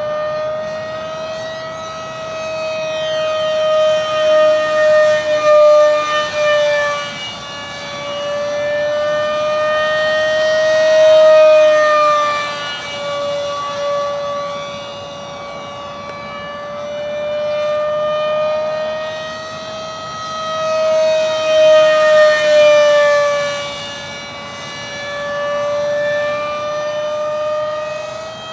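Skyangel 50mm electric ducted-fan A-4 Skyhawk model jet in flight: a steady high-pitched fan whine. It swells and fades several times as the jet passes, with the pitch sliding slightly up and down.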